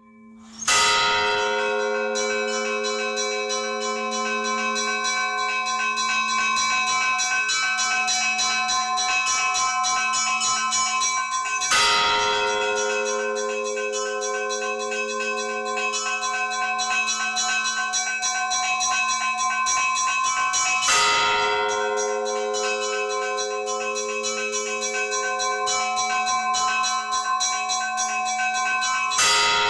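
Church bells ringing: a large bell struck about every nine seconds over continuous quick chiming of smaller bells, with a steady low hum underneath.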